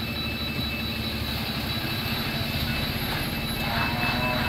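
Diesel engine of a heavily loaded 16-tyre Tata truck running under load as it climbs a steep hairpin bend, with a steady high whine over the low engine rumble.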